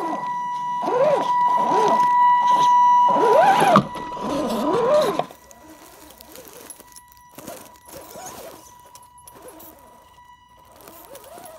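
Electric motor and gearbox of a 1/10-scale RC rock crawler whining, the pitch rising and falling in short sweeps as the throttle is worked, over a steady high tone. About five seconds in it drops much quieter, leaving fainter whine and scattered clicks and crackles of tyres on rocks and dry leaves.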